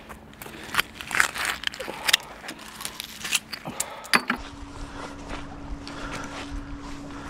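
Sharp clicks and clinks of small scrap metal being handled and pulled off a neodymium fishing magnet. About four seconds in, this gives way to a steadier low rumble with a faint steady hum.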